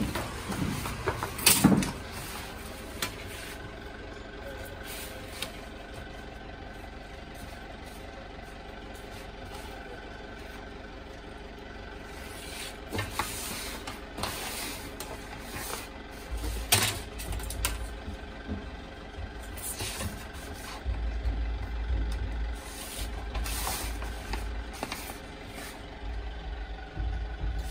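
A steady mechanical hum runs throughout, with scattered clicks and rubbing sounds and, in the second half, repeated low knocks.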